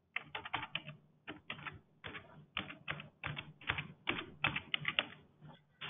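Typing on a computer keyboard: an irregular run of quick key clicks as a word is typed in.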